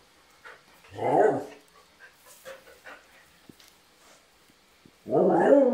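Border collie 'talking': a short vocal call that slides up and then down in pitch about a second in, then near the end a long, loud, wavering vocalization whose pitch steps up and down.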